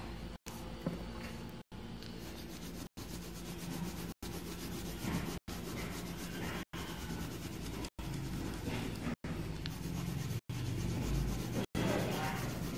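Coloured pencil scratching back and forth on paper as it shades in a drawing, over a low steady hum. The sound is broken by a brief dropout about every second and a quarter.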